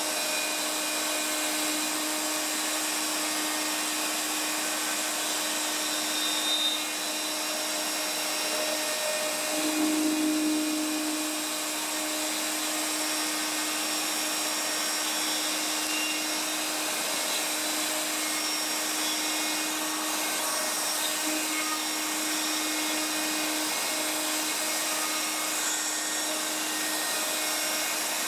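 Bosch compact router running at high speed as the CNC spindle, its bit cutting a square outline into plywood, with a shop vacuum drawing dust at the bit. The noise holds steady, with a brief swell about ten seconds in.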